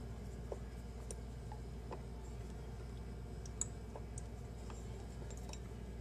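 Sparse small metal clicks of an Allen key turning the set screw in the chrome handle of a single-handle Delta faucet, one sharper click about three and a half seconds in, over a steady low hum.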